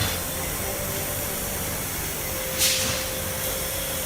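GQ45 rebar cutter's 3 kW electric motor and gear drive running without load, a steady mechanical hum and hiss. There is a brief louder burst of hiss about two and a half seconds in.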